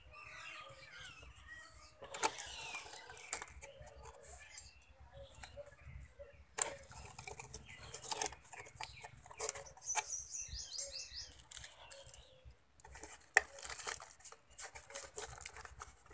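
Thin plastic pot sleeve crinkling and croton leaves rustling as gloved hands handle a potted cutting, with irregular sharp crackles and clicks.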